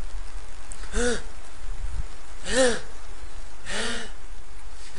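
Three short vocal sounds from a person's voice, each rising and falling in pitch, about a second and a half apart, over a steady low hum.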